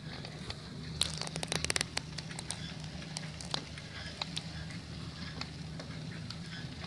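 Handmade four-wheel pedal cargo bike rolling along a paved road: a steady low rumble with many scattered crackling clicks and rattles, including a quick run of clicks about a second in.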